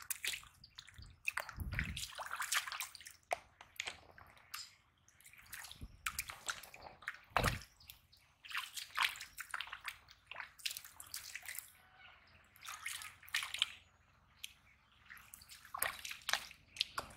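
Bare feet squelching and sloshing through deep mud and shallow muddy water in uneven steps, with two dull low thuds, about two seconds in and about seven and a half seconds in.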